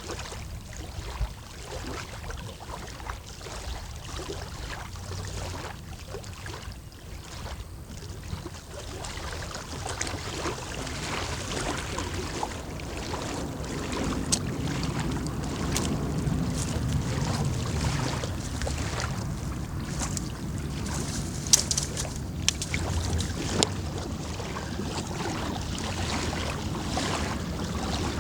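Water lapping, with wind buffeting the microphone in low rumbles that grow louder about a third of the way in; a few faint clicks and knocks throughout.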